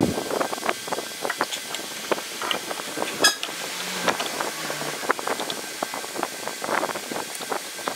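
Irregular light clicks and metallic taps of a fuel filter canister being handled and fitted to a diesel fuel feed pump head, with one sharper metallic clink about three seconds in.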